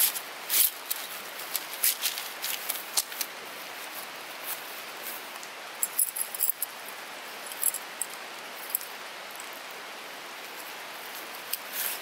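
Metal tent pegs clinking and rattling together and a fabric stuff sack rustling as tent gear is handled and packed. The clinks come in clusters through the first three seconds and again around six seconds in, over a steady background hiss.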